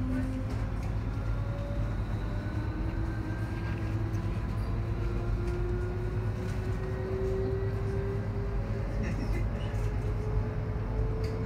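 Cabin noise of an ES2G "Lastochka" electric train in motion: a steady low rumble with the traction motors' whine climbing slowly in pitch as the train gathers speed. A few sharp clicks come near the end.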